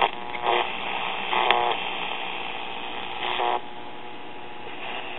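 Small AM pocket radio being tuned through the broadcast band: a steady hiss of static, broken three times by brief snatches of stations passing on the dial.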